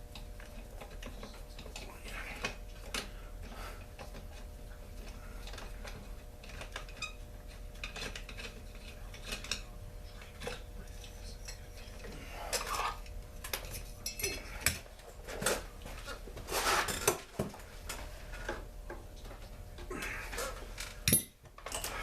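Metal hand tools clinking and clicking against the metal parts of a Poulan Pro chainsaw as its muffler is unbolted and taken off, in scattered small knocks that come thicker past the middle, with one sharp click near the end.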